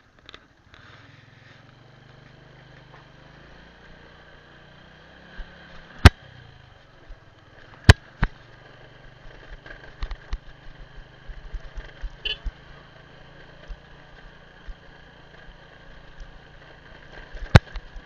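Small motorbike engine running steadily while riding, with sharp knocks from the bike over the rough lane, the loudest about six, eight and seventeen seconds in, and a scatter of smaller ticks in the second half.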